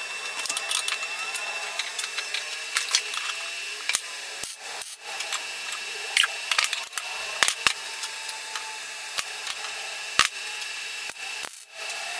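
Electric arc welding on a square steel tube frame corner: a steady crackling hiss with frequent sharp irregular pops.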